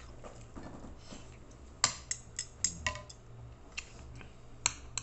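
Metal fork and spoon clinking and scraping against a dinner plate while eating: a quick run of sharp clinks about two seconds in, and a few more near the end, some with a short ring.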